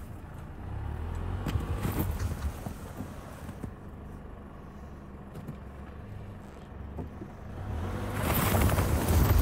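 Lexus ES driving slowly through snow on tyre chains: a low rumble of engine and tyres with scattered clicks and crunches. About eight seconds in it swells into a louder rushing noise.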